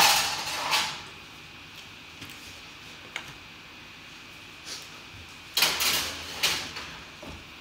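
Metal baking trays of cookie dough being handled and put into the oven: a noisy clatter right at the start and again about five and a half seconds in, with a few light knocks between.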